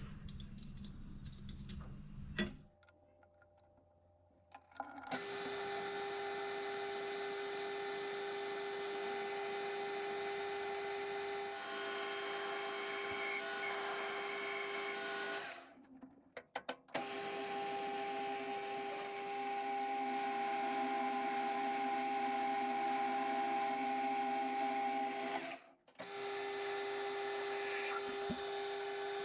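Machine-tool motor running at a steady speed with a constant whine, cutting off abruptly and restarting a few times. Before the first break, a lower, rumbling sound runs briefly.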